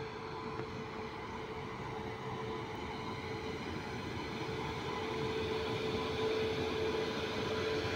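Electric freight train running on the rails: a steady rumble with a constant hum, growing gradually louder.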